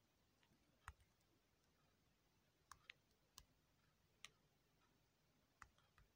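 Faint taps of typing on a phone's on-screen keyboard: about seven separate clicks, spaced irregularly, over near silence.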